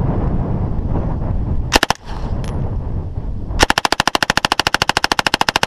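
Gunfire: two sharp shots close together, then about two seconds later a long burst of rapid, evenly spaced shots from a firearm on full automatic, lasting about two seconds.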